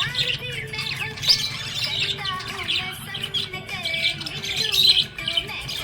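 Budgerigars chirping and warbling continuously in quick, overlapping chirps, over a steady low hum.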